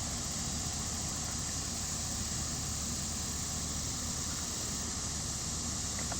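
Steady background hiss over a low hum, with no shot or other distinct event.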